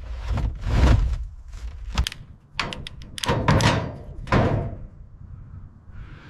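Irregular knocks and thunks with short scraping noises between them, and a few sharp clicks about two to three seconds in.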